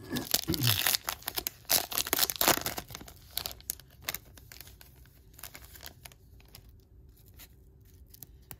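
Baseball card pack wrapper being torn open and crinkled, then the cards pulled out. The crinkling is densest for the first three seconds or so, then thins to a few light rustles and clicks.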